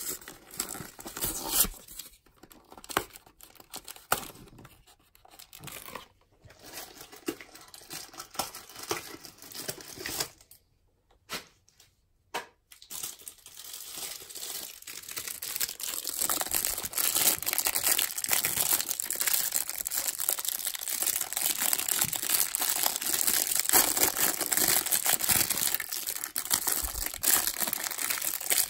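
Hands handling trading-card packaging: scattered rustles and taps, a short pause, then the plastic wrapper around a stack of baseball cards tearing and crinkling steadily and loudly for the rest.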